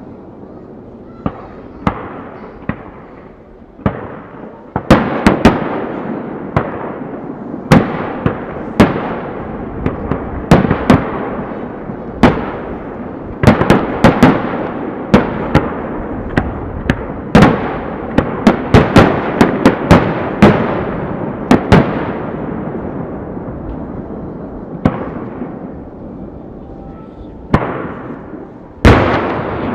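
Aerial fireworks shells bursting about 450 m away: many sharp booms in quick, irregular succession, each trailing off in a long echoing rumble. The bursts come thickest through the middle, thin out for a few seconds, then pick up again near the end.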